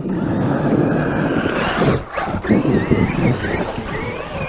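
Large electric RC monster truck being driven hard, its motor whine rising and falling with the throttle over heavy drive noise. There is a short break about two seconds in.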